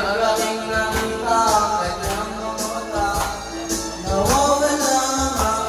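A man singing karaoke into a handheld microphone, his amplified voice over a music backing track.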